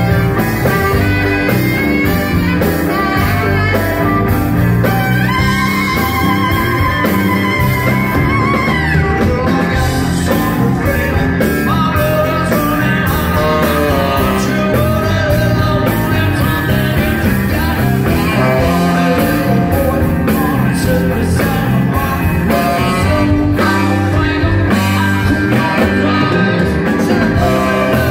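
Live rock band playing loud, with electric guitar, drums, saxophone and a lead singer's vocals. About five seconds in, one note is held for a few seconds with a wavering vibrato.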